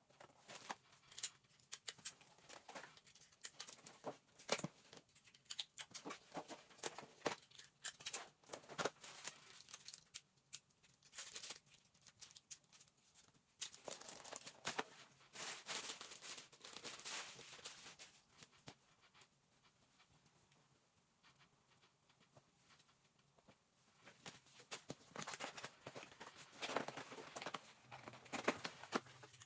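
Gift packaging and clothing being handled: faint, irregular rustling and crinkling with small clicks and taps, easing off for a few seconds past the middle.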